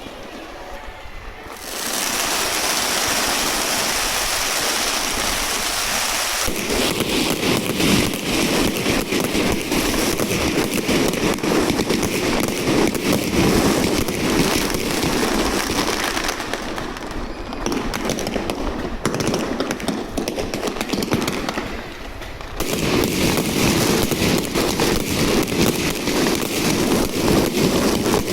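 Aerial fireworks display: a loud hiss starting about two seconds in, then a dense, continuous crackle of many small pops, easing off past the middle and swelling again near the end.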